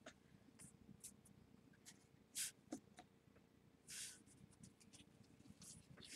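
Faint rustling and sliding of Topps Inception football trading cards as they are handled and shuffled, with a few soft scrapes about two and a half and four seconds in.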